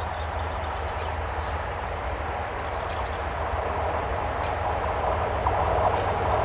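SM42 diesel shunting locomotive running light toward the listener, its engine rumbling steadily and growing louder as it nears.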